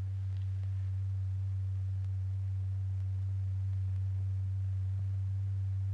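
A steady low pure tone, held at one pitch with a faint higher overtone: the sine-like note that vibrates the stretched diaphragm and drives the Lycopodium powder heap into convection.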